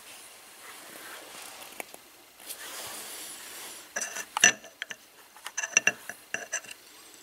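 Metal parts on a Trabant 601 crankshaft clinking as they are handled by hand. Soft handling noise first, then a run of sharp, ringing metallic clinks in the second half, the loudest about four and a half seconds in.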